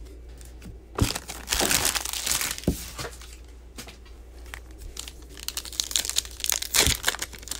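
Foil trading-card pack wrapper crinkling as it is handled and torn open by hand, with a few sharp clicks among the rustling.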